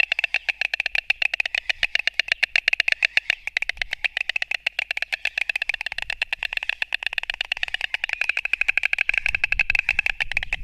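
White storks clattering their bills: a rapid, steady run of clacks, the aggressive display of storks fighting over the nest.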